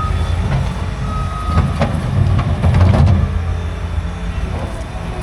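Heavy work vehicle's engine rumbling while its backup alarm beeps, once at the start and again about a second in, with a few clanking knocks in the middle.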